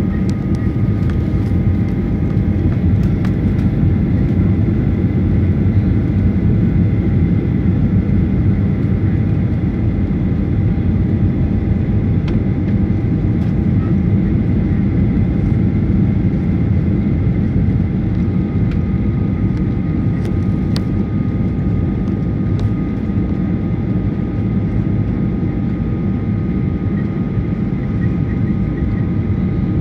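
Steady cabin noise of a jet airliner descending on approach to land: a constant rush of engine and airflow noise with a few faint steady whining tones above it.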